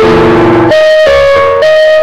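Electronic keyboard played with a lead voice: a loud melody of single held notes that steps to a new pitch every third of a second or so.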